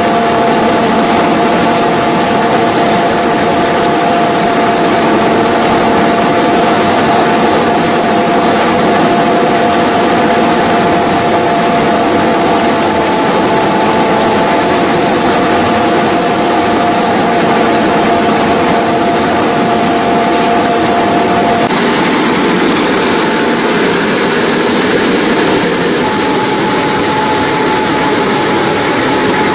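Wheat flour milling machine running steadily and loudly while grinding, with a steady whine over the mill's noise. The whine changes pitch about three-quarters of the way through.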